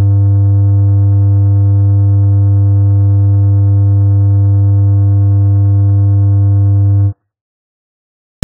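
Steady low electronic buzz at one unchanging pitch, the test-tone sound effect laid over a TV colour-bar pattern; it starts abruptly and cuts off suddenly about seven seconds in.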